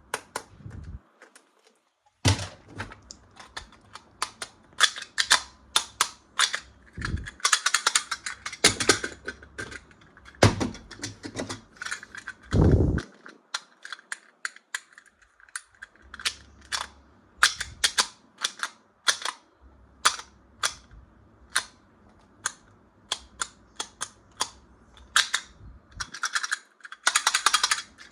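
Hard plastic toys and their packaging being handled: an irregular run of sharp clicks and snaps, with bursts of crinkling and a few dull thumps.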